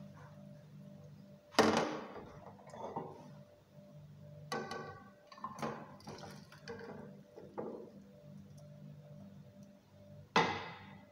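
Cookware clattering as a non-stick frying pan of curry is lifted off a gas stove and tipped over a ceramic bowl. There is a sharp knock about a second and a half in and another near the end, with clinks, scrapes and a brief metallic ring in between, over a low steady hum.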